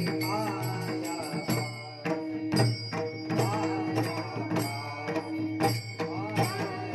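A Marathi Warkari bhajan: a singer's voice gliding over a steady held drone, with drum strokes marking the beat.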